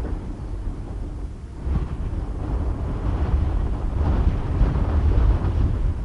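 Wind buffeting the microphone: an uneven low rumble that dips a little past one second in and picks up again about two seconds in.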